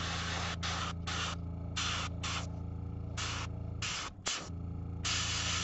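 Airbrush spraying in short hissing bursts as the trigger is worked on and off, about eight times, over a steady low motor hum.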